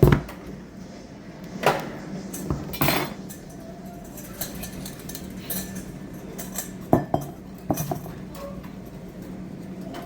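Kitchenware clatter: a bowl and utensils being handled, with a handful of separate sharp knocks and clinks spread through, over a steady low hum.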